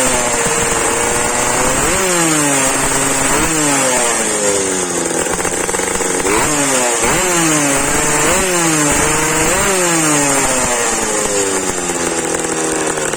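Tomos moped's two-stroke engine with a new exhaust, revved repeatedly: the pitch jumps up sharply about seven times and each time sinks slowly back.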